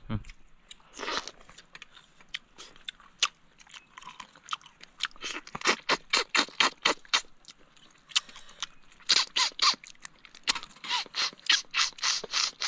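Close-up chewing and biting into a piece of boiled catfish, with wet, crackly crunches as the teeth work through skin and small bones. The crunches come in quick runs, sparse at first and densest around the middle and again near the end.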